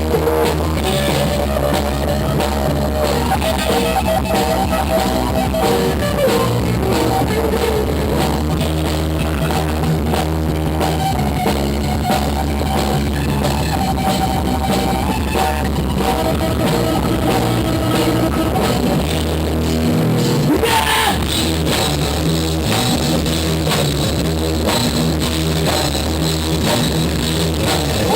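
Rock band music with drum kit and guitar, playing steadily; about twenty seconds in, a short rising slide and a sharp hit mark a transition in the song.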